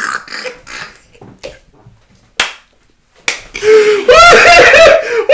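Two men laughing hard: short breathy wheezes of laughter, a single sharp smack about halfway through, then loud, high-pitched howling laughter in the last second and a half.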